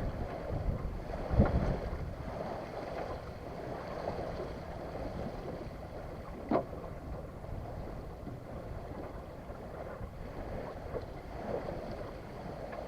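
Wind buffeting the microphone over water moving along a small sailboat's hull, with a low thump about a second in and a single sharp knock about halfway through.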